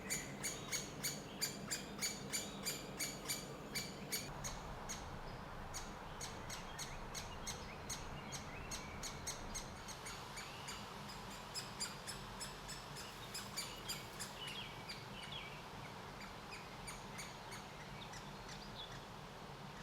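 Great spotted woodpecker nestlings begging to be fed: a steady run of short, sharp calls, about three a second, that grows sparser and fainter about halfway through.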